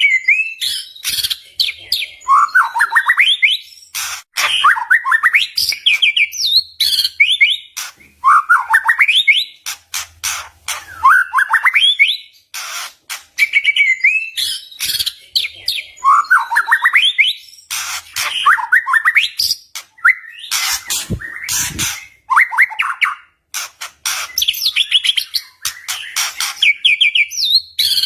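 White-rumped shama singing a loud, fast song: the same phrase comes back about every two seconds, a rising whistled sweep mixed with sharp clicking, crackling notes.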